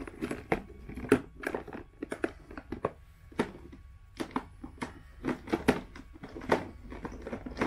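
Plastic toy animals knocking and scraping against each other and a plastic basket as they are rummaged through: a string of irregular clicks and taps.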